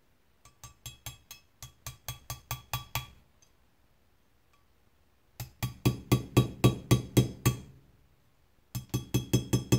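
Small hammer tapping a punch set in a hole of a revolver's firing pin keeper, turning the keeper so it can come out of the frame. Three runs of quick light taps, about five a second, each tap with a short metallic ring; the middle run is the loudest.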